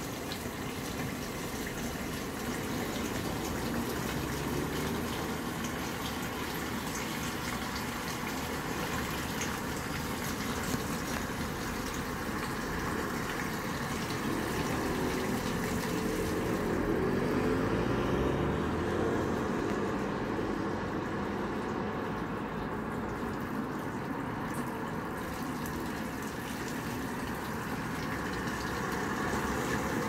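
Steady rush of running tap water. Through the middle, a passing vehicle's engine rises and falls in pitch under it.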